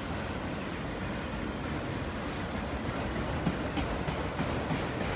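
Autorack freight cars rolling past on steel wheels: a steady rumble and rattle of the passing train, with a few short high-pitched squeals from the wheels in the second half.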